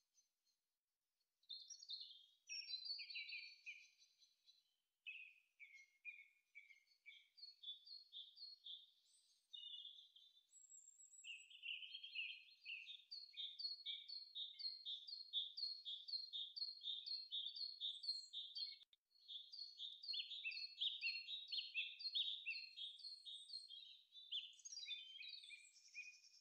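Birdsong: rapid, repeated high chirps and short trills, running at about three notes a second through the middle stretch and starting about a second and a half in.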